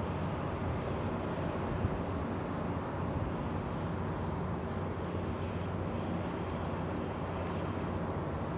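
Tugboat engine running steadily at constant power, a low, even drone.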